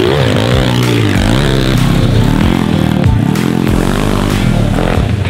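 MRF 140 pit bike's single-cylinder engine revving up and down repeatedly as it is ridden over a rough dirt trail, rising and falling in pitch about once a second.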